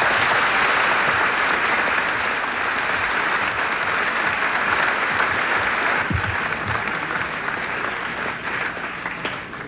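Large audience applauding at the close of a debate speech: sustained clapping that thins out toward the end.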